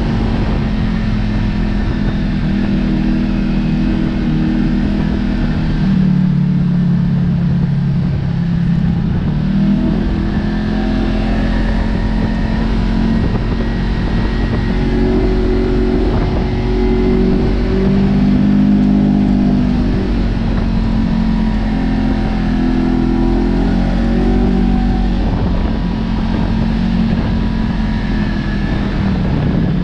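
Kawasaki KRX side-by-side's parallel-twin engine running steadily as it drives a dirt trail, its pitch rising and falling several times as the throttle comes on and off, heard from inside the open cab.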